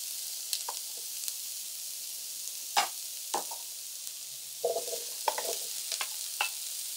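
Onion and garlic sizzling steadily in olive oil in a frying pan as butternut squash cubes are scraped out of a bowl with a wooden spoon, with a scattering of sharp knocks and clatter from the spoon and falling cubes, the loudest about three seconds in.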